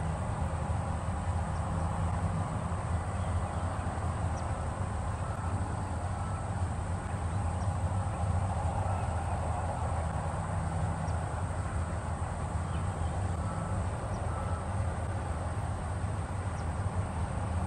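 Steady outdoor background noise: a constant low rumble with a few faint, short high chirps scattered through it.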